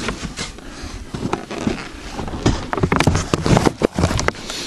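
Handling noise: an irregular run of light knocks, taps and rustles as boxed fireworks are picked up and moved about.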